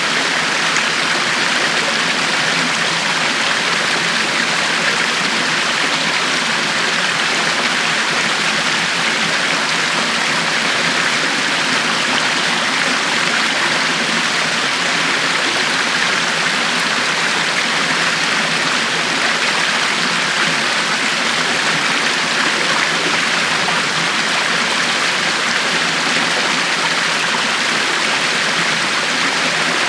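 River water flowing in a steady, even rush, with no single splash or change standing out.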